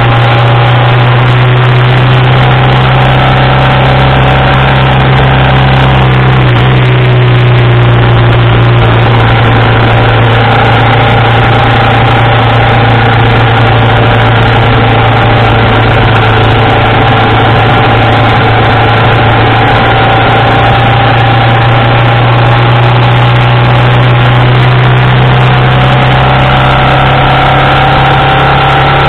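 1987 BMW R80RT's air-cooled flat-twin engine running at road speed, heard close up from the engine bar over a steady rush of wind. The engine note dips briefly about six or seven seconds in, then slowly climbs again.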